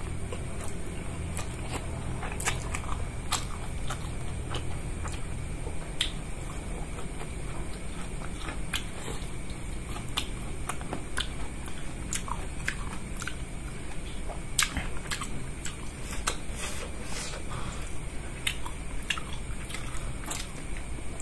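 A man chewing mouthfuls of rice and instant noodles eaten by hand, with irregular wet clicks of lips and mouth throughout, over a steady low hum.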